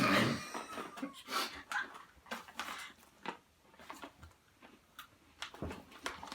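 Someone eating crunchy Italian biscuits from a freshly opened packet: a louder burst at the start, then scattered short crackles and crunches of biting and wrapper handling.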